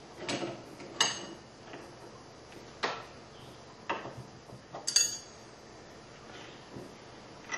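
Sharp metallic clicks and clinks from hands working a single-stage reloading press and its die, about six of them at uneven intervals, the loudest about a second in and a close pair about five seconds in.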